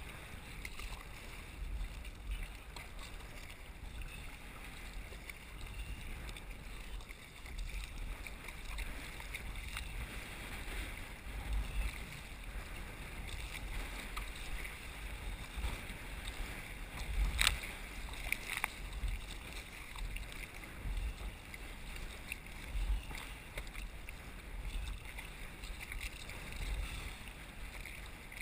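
Water splashing and sloshing around a sea kayak's hull as it is paddled through light chop, with irregular gusts of wind rumbling on the microphone. One sharp knock comes a little past the middle.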